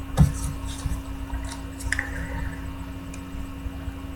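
A soft thump, then a few faint clicks and small handling noises over a steady low electrical hum.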